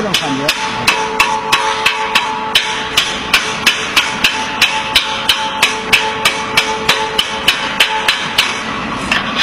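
Hammer blows in a quick, even rhythm, about three a second, with a steady hum beneath that stops about eight seconds in.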